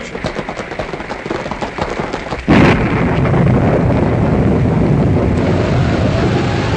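Studio sound effects of a thunderstorm for a radio drama. A rapid patter of sharp clicks gives way, about two and a half seconds in, to a sudden loud thunder crash. The crash settles into a steady heavy rumble of rain and thunder, with a faint rising and falling howl near the end.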